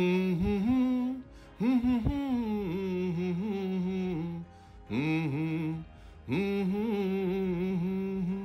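A man's voice singing a slow, wavering melody without clear words, in four phrases with short breaks between them.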